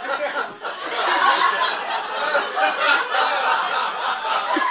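Audience laughing, loud and continuous.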